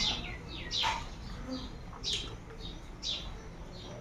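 A small bird chirping over and over: short, high, falling chirps about once a second, over the soft chewing and mouth sounds of someone eating rice by hand.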